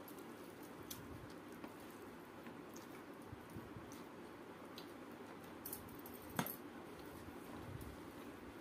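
Faint hand-eating sounds: fingers mixing and squeezing rice on a steel plate, soft squishing with scattered small clicks of fingers and rings on the metal, and one sharper click about six seconds in, over a steady low hum.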